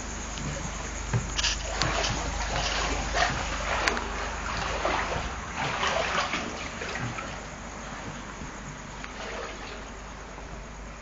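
Floodwater splashing and sloshing as someone wades through about two feet of water, in irregular surges for the first several seconds, then quieter.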